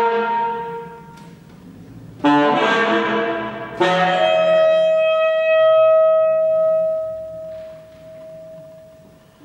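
Alto saxophone and grand piano playing contemporary concert music. Two sudden loud accented chords come about two seconds in and again a second and a half later. The saxophone then holds one long note that swells and dies away near the end.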